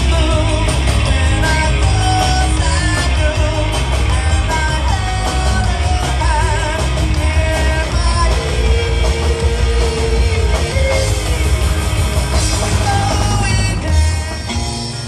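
Live rock band playing with electric guitars, drums and a lead singer.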